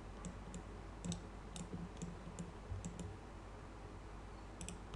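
Computer mouse clicks, faint and irregular, about a dozen short sharp clicks with a quick cluster near the end, over a low steady hum.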